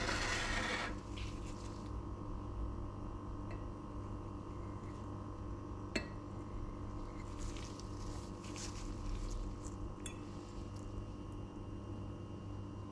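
Metal knife and fork on a ceramic plate while cutting a soft chocolate gelatin dessert. A brief rustling scrape comes in the first second, then a sharp clink about halfway through, soft scrapes, and a second ringing clink later on, all over a steady low hum.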